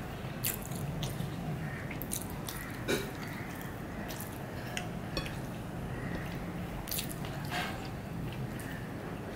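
Close-up eating sounds: wet chewing of a mouthful of khichuri, with irregular sharp mouth clicks and smacks, and fingers squishing soft rice on a plate. A low steady hum runs underneath.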